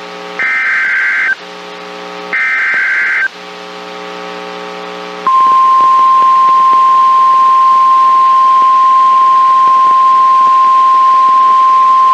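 EAS alert header coming through a TFT EAS 911: the last two of the three SAME digital data bursts, each about a second long and a second apart, with a steady buzz in the gaps. About five seconds in, the NOAA Weather Radio 1050 Hz warning alarm tone starts and holds as one steady tone, signalling the start of a warning.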